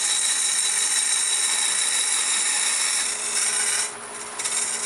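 Turning tool in a sphere-turning jig cutting a spinning sumac blank on a wood lathe: a steady, loud hiss of cutting. It breaks off about four seconds in, and the cut starts again shortly before the end, with the lathe's hum underneath.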